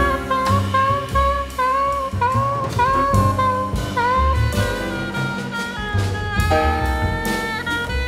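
Soprano saxophone playing a jazz solo line with bending, sliding notes, over a bass line and drum kit.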